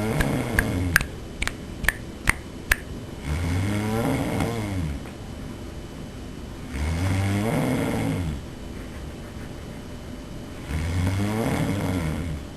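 A sleeping person snoring loudly: four long snores, about one every three and a half to four seconds. A quick run of sharp clicks, the loudest sounds here, comes during the first three seconds.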